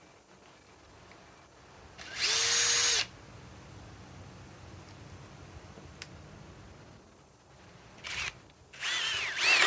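Metabo HPT WH18DBDL2 cordless impact driver driving a long timber screw. It runs hard for about a second, then gives a few short trigger pulses near the end, its motor whine rising and falling.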